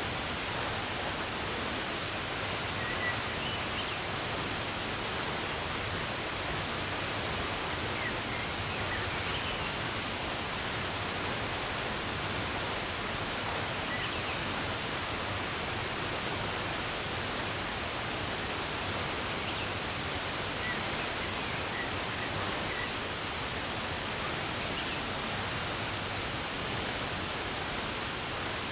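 Steady rushing of running water, with faint, scattered bird chirps now and then over it.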